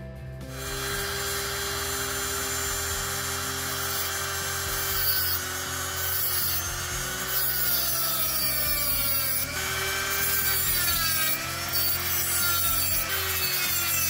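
Handheld rotary tool with a cut-off disc cutting into a thin aluminium knife liner: a grinding hiss over a whine whose pitch dips and recovers several times as the disc bites. The liner is being notched so it will clear a scalpel blade. It starts about half a second in.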